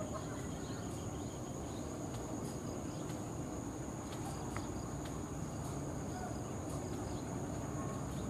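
Diesel-electric locomotive idling, a steady low rumble, with insects keeping up a steady high-pitched buzz over it.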